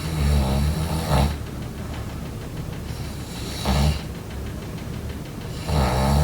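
A person snoring in their sleep: a long snore at the start, a short one about halfway through, and another beginning near the end.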